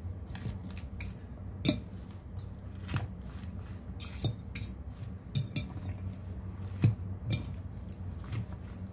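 Metal fork clinking and scraping against a bowl as a leafy salad is tossed, in irregular taps with a few sharper clinks.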